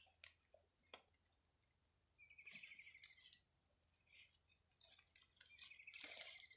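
Near silence broken by a faint rapid trilling bird call, heard twice: about two seconds in and again near the end, each lasting about a second. A few light clicks in the first second.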